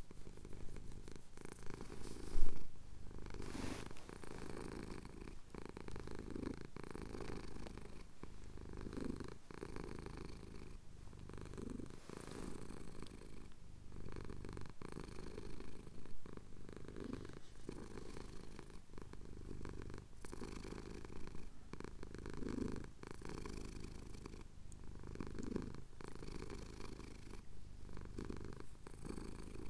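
Domestic cat purring steadily as he has his chin scratched, the purr swelling with each breath every two to three seconds. A brief thump about two seconds in.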